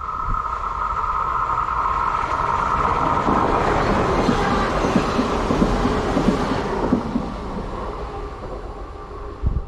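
Passenger train passing: a steady whine at first, then wheel and rail noise that builds to a peak mid-way with repeated clatter from the wheels, and fades away. A brief low thump near the end.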